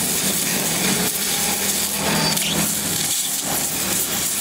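Gas welding torch flame hissing steadily as it heats and welds a steel seam on a car's rocker panel, a constant rough hiss.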